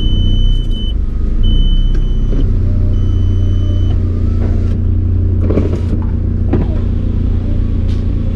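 Car engine idling with a steady low hum, while a high electronic warning chime beeps three times, each beep about a second long, in the first four seconds.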